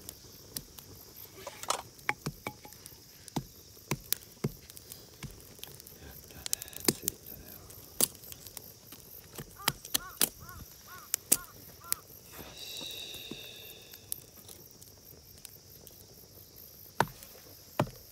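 Small wood fire crackling, with irregular sharp pops and snaps as the flames catch on the kindling sticks.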